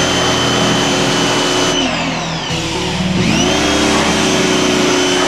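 Pressure washer spraying, its motor whine and the hiss of the water jet; about two seconds in the trigger is let go and the motor winds down, then it winds back up and sprays again about a second later.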